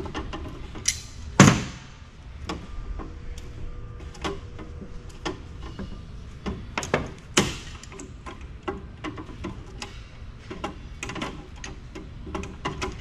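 Irregular metallic clicks and clinks of a hand tool working nuts and bolts loose from a steel chassis, with louder knocks about one and a half and seven and a half seconds in.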